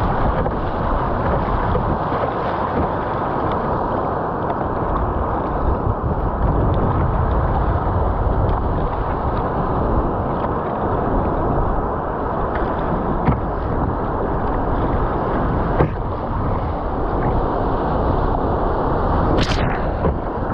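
Wind rushing on the microphone and water washing and splashing around an Epic V7 surfski riding small waves, with a few short sharp knocks, the strongest shortly before the end.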